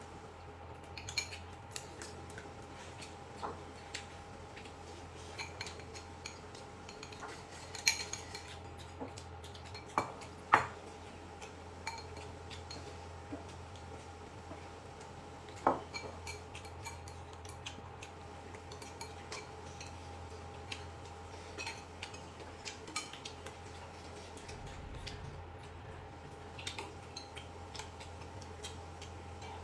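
Eating utensils clicking and clinking against dishes during a meal. There are scattered light clicks, with a few sharper clinks, over a faint steady hum.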